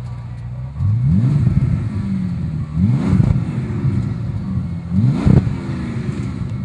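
Bentley Continental GT's twin-turbo W12 engine, breathing through a Fabspeed Maxflo exhaust, revved three times about two seconds apart. Each rev climbs quickly and drops back to idle, and the third is the loudest.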